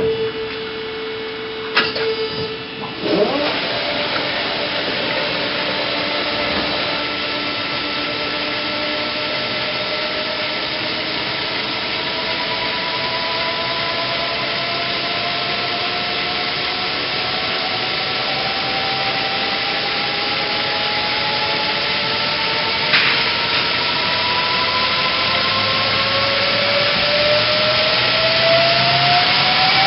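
Daewoo Puma 12LC CNC lathe running, a steady mechanical hiss with a whine that climbs slowly in pitch over many seconds. There are a few sharp clicks in the first few seconds.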